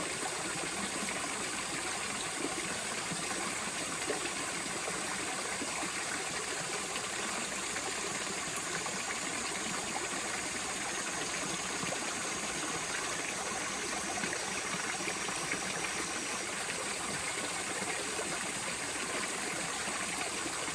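Steady rush of flowing water, an even noise that holds unchanged throughout.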